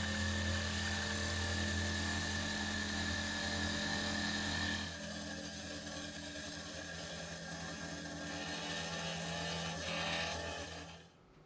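Benchtop mini mill taking a fly cutter across an aluminum plate: a steady motor hum with a high whine over the noise of the cut. The sound shifts about five seconds in and stops shortly before the end.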